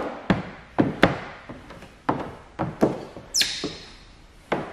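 Plastic squeegee working wet paint protection film onto a pickup truck's hood: a quick knock or tap with each short stroke, about two a second, and one brief high squeak that falls in pitch a little past three seconds in.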